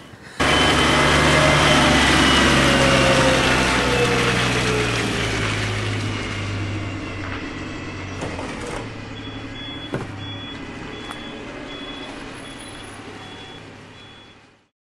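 Heavy truck running, its engine pitch slowly falling as the sound fades. A reversing beeper starts about nine seconds in and beeps about twice a second, with a single sharp knock about ten seconds in.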